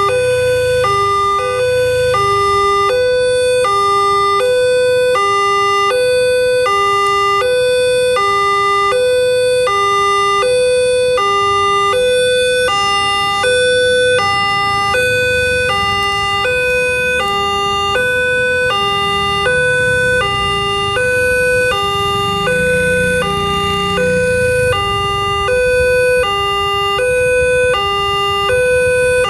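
Railway level crossing warning siren sounding a steady two-tone hi-lo alternation, each tone lasting about half a second, repeating without a break. A low rumble runs underneath.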